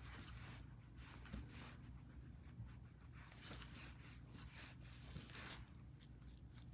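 Near silence: quiet room tone with a few brief, faint, scratchy rustles.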